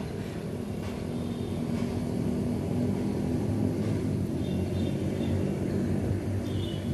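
Low, steady drone of an unseen engine, growing slowly louder.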